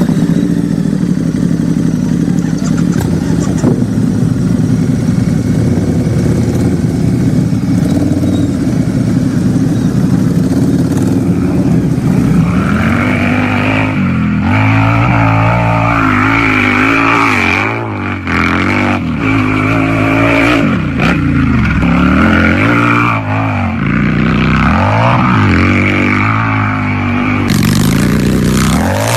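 Harley-Davidson motorcycle engine idling steadily, then from a little under halfway through revved again and again, the pitch rising and falling with each blip of the throttle.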